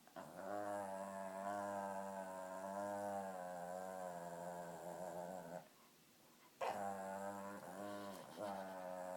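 A pet dog making a strange, long, wavering, pitched call held for about five seconds. After a short pause comes a sharper sudden sound, then two shorter wavering calls of the same kind.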